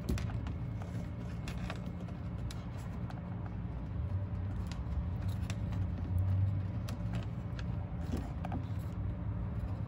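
Faint clicks and handling noises from hands working wire and splice connectors, over a steady low rumble.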